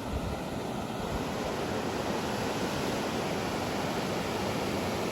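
Steady rush of river water pouring over a small waterfall, an even unbroken roar of water, with some wind buffeting the microphone underneath.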